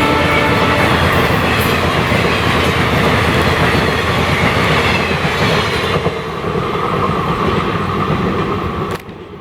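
Diesel-hauled train passing close by, its wheels clattering over the rail joints, with the last of a horn note in the first second. The noise drops about six seconds in and cuts off sharply near the end.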